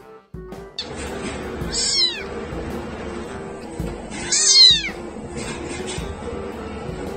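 A very young kitten meowing twice, high-pitched cries about two and a half seconds apart, each falling in pitch, the second the louder, over background music.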